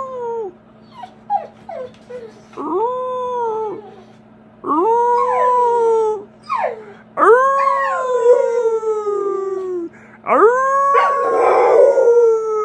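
American Bully dog howling: four long howls, each rising quickly and then sliding slowly down in pitch, with a few short yips between the first two. The last howl runs on past the end.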